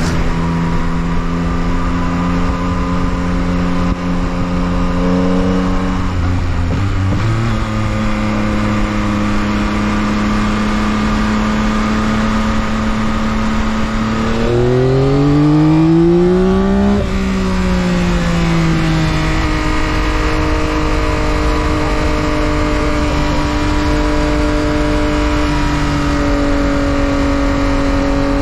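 2022 Yamaha XSR900's inline three-cylinder engine through its stock exhaust while riding: steady running, a drop in pitch about six seconds in, then the revs climb and it gets louder for a couple of seconds around the middle before falling back to steady cruising. Low wind rumble on the microphone underneath.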